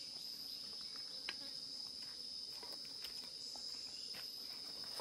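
Insects buzzing steadily, a single unbroken high-pitched tone, with a few faint ticks and rustles from hands handling food and plastic wrapping.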